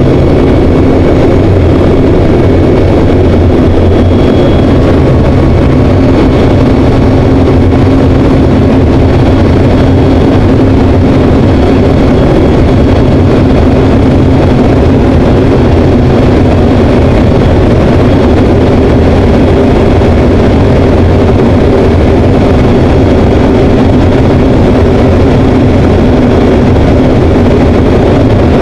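Single-engine propeller aircraft's engine and propeller droning steadily and loud, heard from inside the cockpit in flight.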